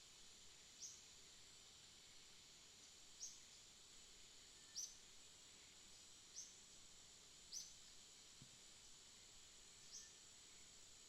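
Faint rainforest night ambience: a steady high-pitched insect hiss, with short chirps that dip slightly in pitch, repeating about every two seconds.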